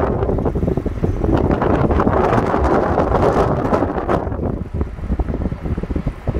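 Wind buffeting the microphone from a moving vehicle, over the rumble of the vehicle and its tyres on the road. The buffeting eases and turns choppier about five seconds in.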